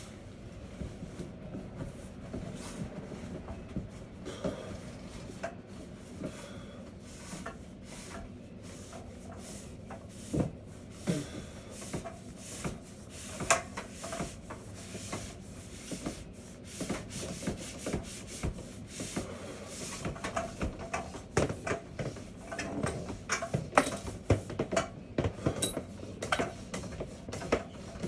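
Dryer vent brush being pushed through the vent duct, scraping and rubbing along the inside with irregular knocks and clicks that come thicker in the last third. Under it runs a steady low hum from the dryer, running without heat to blow the loosened lint out.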